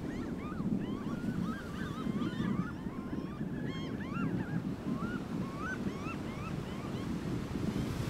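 Gulls calling: many short cries that rise and fall in pitch, overlapping and coming thick through most of the stretch, thinning near the end. Underneath is a steady low rush of wind on the microphone and surf.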